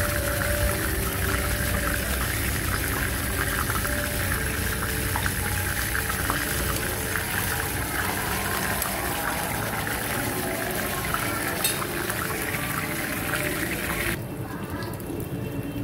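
Battered, marinated chicken pieces shallow-frying in hot oil in a frying pan: a steady, dense sizzle and crackle as more pieces are dropped in. Near the end the sizzle suddenly becomes softer and duller.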